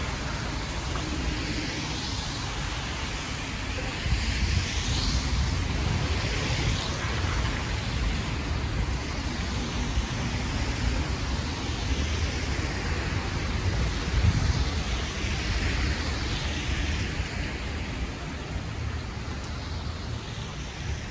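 Street traffic: cars passing one after another on a wet, slushy road, their tyres hissing as each swells and fades, over a steady low rumble.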